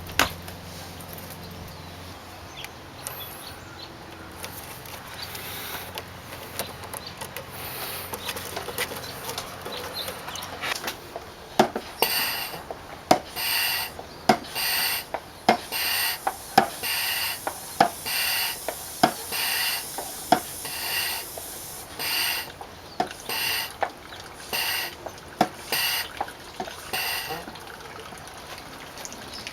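Moeller suction pump being worked by hand, about fourteen even strokes roughly one a second, each with a squeak and a click, to pull a vacuum and draw engine oil up through the dipstick tube. Fainter handling clicks come before the pumping starts.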